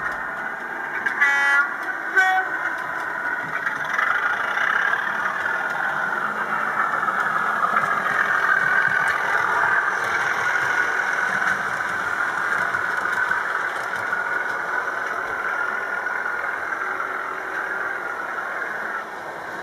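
Model Class 37 diesel locomotive with four Mk1 coaches: two horn blasts about a second in, a longer one then a short one, then the steady running sound of the model train passing, loudest midway and fading toward the end.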